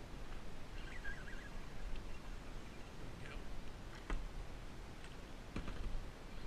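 A small bird's short warbling chirp about a second in, then a few sharp clicks from handling a baitcasting reel and rod, over a low rumble.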